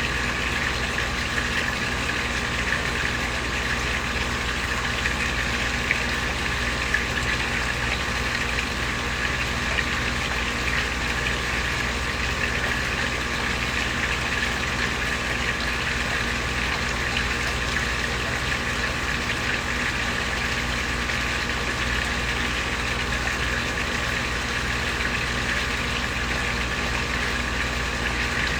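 Koi pond waterfall: water splashing steadily into the pond, with a steady low hum underneath.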